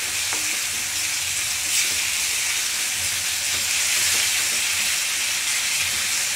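Onion-tomato masala with cashew-and-peanut paste frying in mustard oil in a steel kadai: a steady sizzle, stirred with a wooden spatula.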